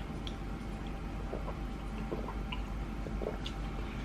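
Soft, wet mouth sounds close to the microphone: sipping and swallowing green tea, with small scattered clicks.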